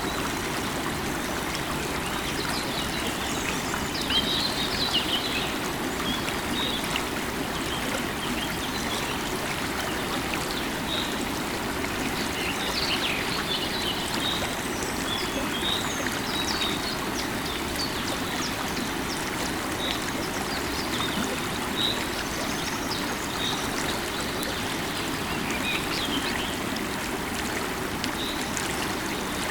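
River water running steadily over stones, with small birds chirping and twittering throughout.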